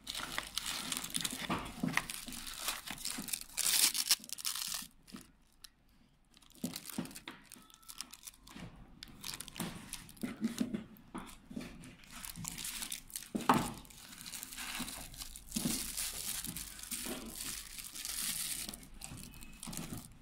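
Clear plastic bags crinkling and rustling as they are handled, in uneven bursts, with a short lull about five seconds in and a single sharp knock about two-thirds of the way through.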